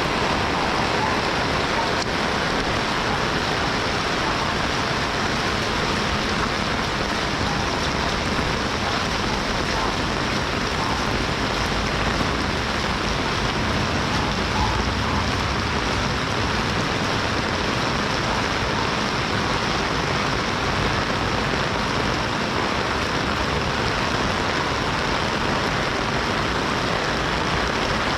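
Steady rain falling and pattering on surfaces, an even hiss. A low rumble swells briefly about halfway through.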